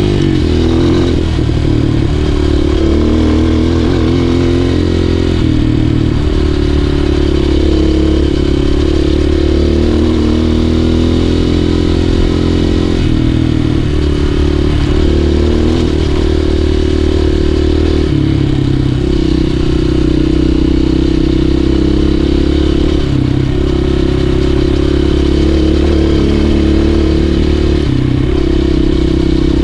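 Enduro dirt bike engine running as it is ridden along, its pitch rising and dropping in steps every few seconds.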